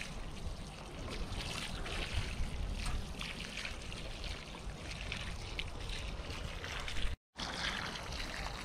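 Water showering from the rose of a metal watering can onto bare soil, a steady hissing patter. A very brief dropout about seven seconds in.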